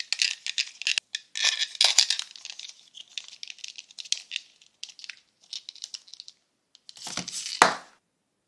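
Soft red modelling dough being peeled out of a plastic mould: a sticky, crackly peeling that comes and goes in short runs. A louder, fuller knock comes near the end.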